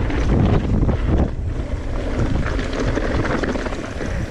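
Wind buffeting the camera microphone on a fast mountain bike descent, mixed with the rumble and rattle of tyres over loose gravel and rock. It eases off near the end as the bike slows.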